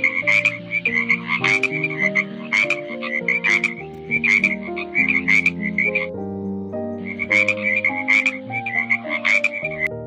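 Frog croaking in a quick series of short, raspy calls, about two a second, with a pause of about a second some six seconds in.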